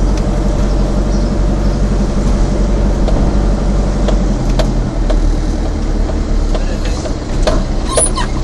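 Vehicle engine and road noise heard from inside the cabin while driving: a steady low hum with a few brief light clicks.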